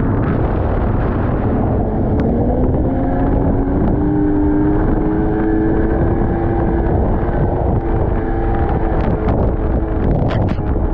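Snowmobile engine running under throttle, its pitch climbing a couple of seconds in and then holding steady, with wind buffeting the microphone. A scatter of sharp ticks comes near the end.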